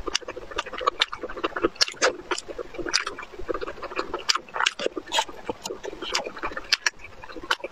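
Wet chewing and lip smacking of a person eating, with many quick irregular clicks from the mouth.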